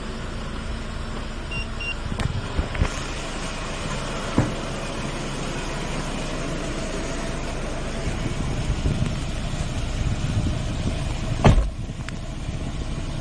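Hyundai Porter II truck engine running at idle, with two short electronic beeps about a second and a half in, a few clicks, and a loud knock near the end.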